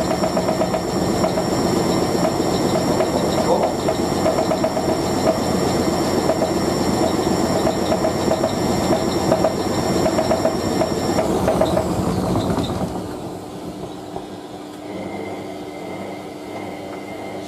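Hotpoint 9530W front-loading washing machine on an unbalanced spin with a load of towels, the drum knocking and the whole machine rattling and shaking hard: the worn shock absorbers are partly to blame. The motor's high whine stops about eleven seconds in, and a second or so later the noise falls sharply to a quieter hum as the spin winds down.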